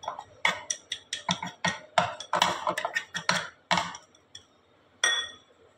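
Stainless steel bowl pressed and tapped across the top of barfi in an aluminium tin: a quick, irregular run of sharp clicks and knocks of metal on metal, then one ringing metallic clink near the end.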